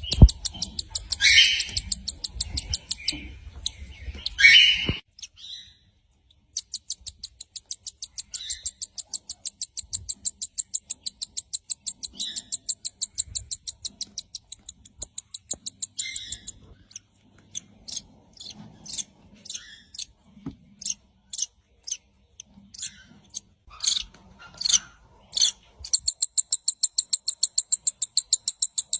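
Birds chirping. A high chirp repeats rapidly and evenly, about four to five times a second, in long runs, with shorter single calls scattered between them. A few louder calls come in the first seconds, and then the sound cuts off suddenly for about a second and a half.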